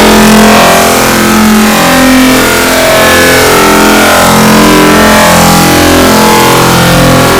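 Sneeze sound effects sped up and layered over and over until they no longer sound like sneezes. What is left is a very loud, distorted, buzzing drone, a dense cluster of tones that shift in pitch about every half second, somewhat like a revving engine.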